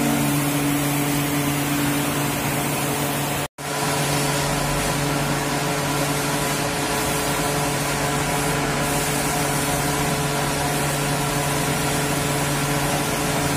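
Jeep Wrangler's engine running at a steady idle, an even mechanical hum. The sound cuts out for a split second about three and a half seconds in.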